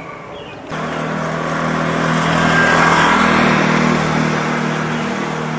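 A motor vehicle passing close by, its engine hum steady in pitch, swelling to a peak about halfway and then easing off. The sound starts suddenly and cuts off suddenly near the end.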